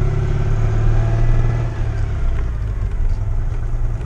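Citroën 2CV's air-cooled flat-twin engine running as the car drives along, its note easing off about halfway through.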